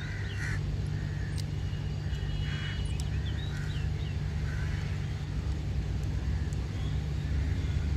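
A steady low engine-like hum, with a few faint clicks and taps as a plastic phone-mount clamp is handled and fitted onto a motorcycle handlebar.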